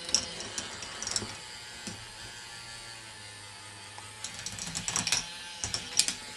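K'Nex ball machine running: plastic parts and balls clicking and clattering irregularly, with bunches of clicks about a second in and again through the last two seconds, over a steady low hum.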